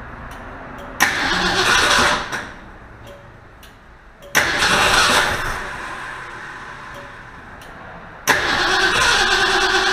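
A 1966 Ford Mustang's 289 small-block V8 being cranked on its starter in three attempts, about a second, four seconds and eight seconds in, each starting abruptly and lasting a second or two. It is the first start after 20 years parked and a top-end rebuild, with the ignition timing and the rebuilt carburetor not yet adjusted.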